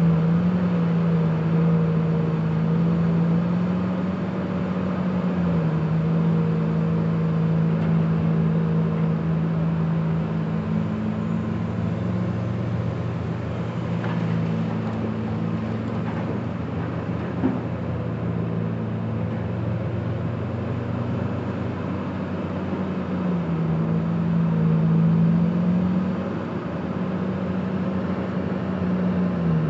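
Large diesel engine of a Komatsu PC2000 hydraulic excavator running under load as it digs and swings to load a haul truck; its note drops and recovers several times as the load changes. One short knock partway through.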